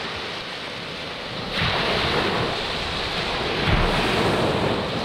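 Ocean waves surging and breaking on the shore. A wave crashes about a second and a half in, and another peaks around four seconds in.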